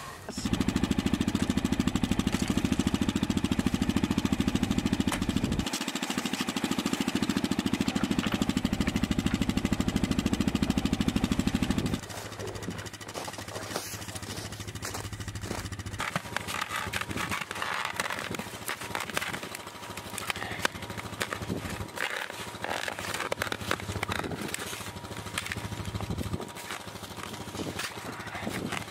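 A small engine running loudly and steadily, with a fast even pulse, changing tone about six seconds in and cutting off abruptly about twelve seconds in. After that come quieter knocks and rustling.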